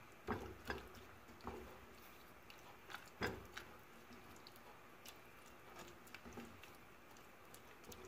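A spatula stirring sliced carrots and green peppers in a thick sauce in a stone-coated pot: faint, irregular wet squishes and light knocks of the spatula against the pot, the loudest about three seconds in.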